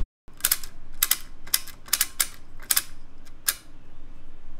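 A run of about a dozen sharp, irregular mechanical clicks over three seconds: the five-digit impression counter on a Chandler & Price letterpress being reset to zero by hand, ready for a print run.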